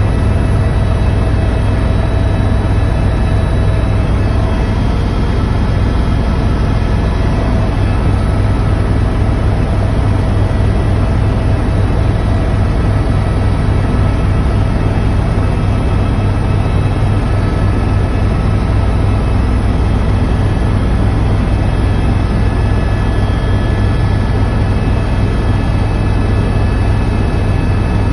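Helicopter cabin noise in level flight: a loud, steady, low drone of rotor and engine, with faint steady whining tones above it.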